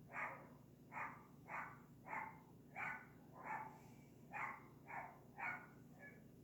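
A dog barking repeatedly: about ten short barks, roughly half a second apart.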